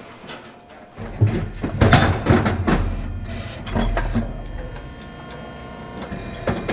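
Steel Moly Silencer hydraulic squeeze chute clanking and knocking as an animal shifts inside it, a handful of sharp metal knocks a second or two in, over a steady low hum.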